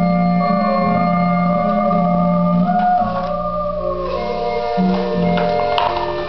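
Music with long held keyboard chords over a bass line that changes note every second or two.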